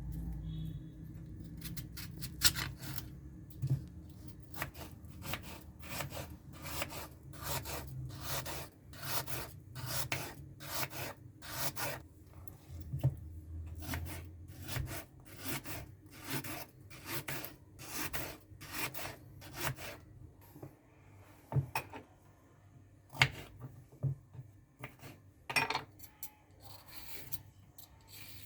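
Vegetables being cut by hand on a wooden cutting board: steady rhythmic scraping strokes about two a second, thinning out to a few scattered strokes after about twenty seconds.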